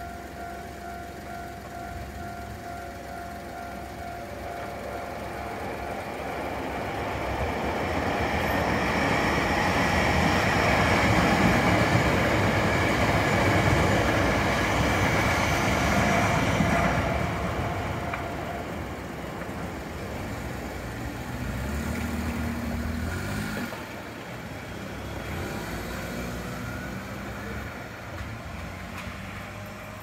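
Level-crossing warning bell ringing in a steady repeating tone as a Hankyu electric train passes. The train's rumble and wheel noise build to a peak about ten to sixteen seconds in, and the bell stops soon after the train fades. In the later part, car engines pull away across the tracks.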